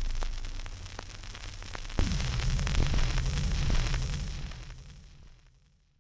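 Stylus running in the run-out groove of a 78 rpm shellac record on a Garrard record player after the music has ended: steady surface hiss with a click about once per turn of the record. A sudden thump about two seconds in is followed by a low rumble, and the sound fades out near the end.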